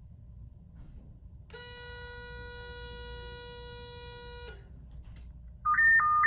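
A steady electronic buzz tone sounds for about three seconds. After a short pause, a loud two-pitch electronic beeping starts near the end, switching rapidly between a lower and a higher tone.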